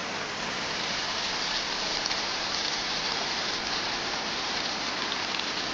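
Steady hiss of heavy rain, even and unbroken, with faint scattered crackles of drops.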